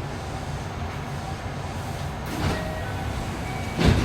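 Steady low rumble inside a JR West 207 series commuter train car, with a short hissy burst about two and a half seconds in and a loud sudden knock right at the end.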